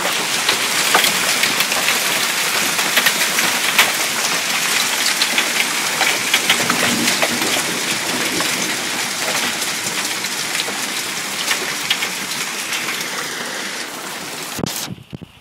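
Hail pelting down in a heavy storm: a dense, steady hiss packed with many sharp clicks of stones striking. The sound cuts off suddenly near the end.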